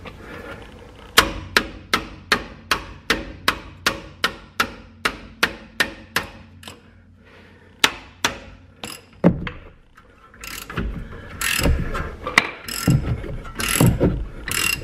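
Ratchet wrench with a 13/16 socket clicking steadily, about three clicks a second, as it backs out a rear brake caliper bracket bolt. Near the end come a few louder, irregular metal knocks and scrapes.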